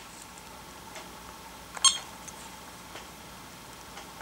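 Siemens KTP400 touch panel giving one short electronic beep, about two seconds in, as a pencil tip presses the calibration cross on its touch screen. A couple of faint ticks come before and after it.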